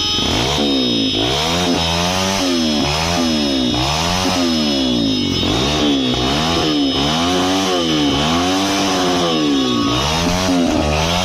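MotorStar Explore 250 v2 motorcycle engine revved through its stock exhaust, throttle blipped over and over so the pitch rises and falls about once every two-thirds of a second.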